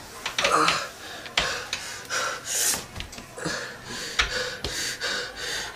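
A frightened young man breathing hard and gasping in quick, ragged breaths, with a couple of sharp knocks.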